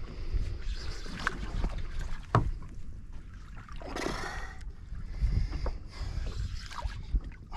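Water slapping against the hull of a small boat at sea, over a low wind rumble, with a couple of sharp knocks and a short hiss about halfway through.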